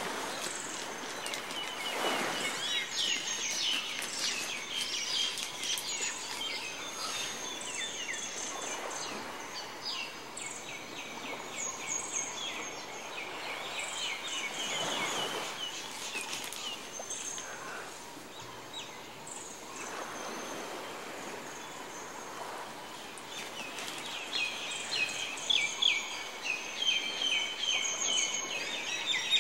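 Small birds chirping and trilling in rapid runs, busiest near the end, with a couple of soft swishing noises in between.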